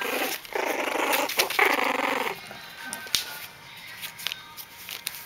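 Jack Russell terrier puppies whining and yelping, with long pitched cries through the first two seconds or so, then quieter scrabbling and a few short squeaks.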